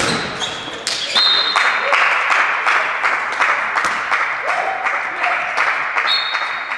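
Handball spectators clapping and cheering in a reverberant sports hall, most likely for a goal. It starts with a sharp impact at the very beginning, and a couple of brief high squeaks, like shoes on the court floor, come through.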